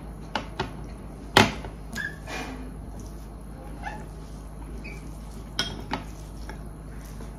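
Spoons and dishes clinking and knocking at a meal, with one sharp knock about a second and a half in and scattered lighter taps after it.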